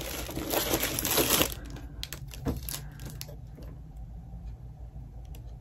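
Plastic packaging crinkling and rustling as items are handled in a cardboard box, stopping about a second and a half in, followed by a few light clicks and taps of paper and cardboard.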